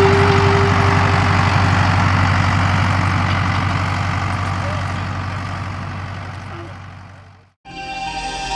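Tractor diesel engine running steadily while pulling a precision seed drill, fading out over several seconds. Electronic music starts near the end.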